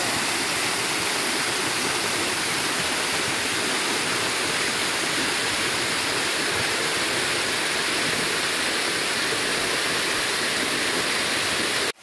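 Waterfall of about 100 feet, water pouring down a rock face onto rocks and into a pool: a steady rush of falling water that cuts off suddenly near the end.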